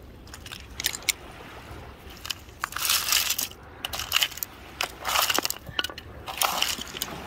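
Crunching of gravel and bone fragments on a river foreshore, stirred or stepped on, in several short bursts with a few sharp clicks.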